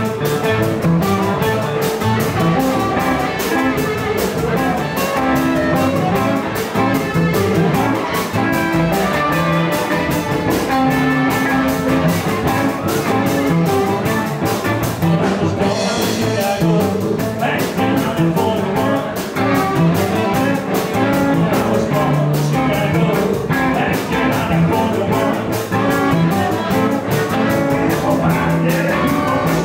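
Live electric blues band playing an instrumental passage: electric guitar, harmonica and drums keeping a steady beat.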